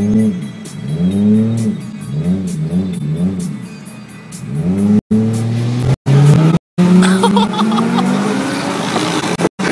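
Car engine revved again and again while standing, its pitch rising and falling about once a second, then accelerating hard from about five seconds in with the pitch climbing steadily. The sound cuts out briefly a few times.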